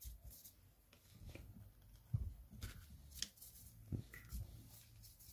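Faint scattered clicks and rustles of handling: a resin 3D-printed figure turned in the fingers while a paintbrush works paint over it, over a low steady hum.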